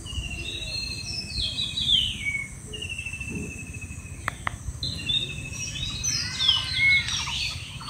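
Birds calling: a rapid, high trill heard twice, with short falling chirps around it and a busier cluster of calls near the end.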